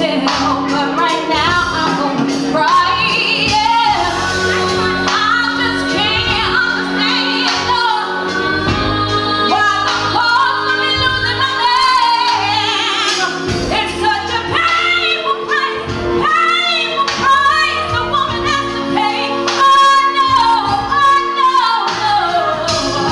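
A song with a woman singing over instrumental backing, her voice sweeping up and down in melodic runs over steady held chords.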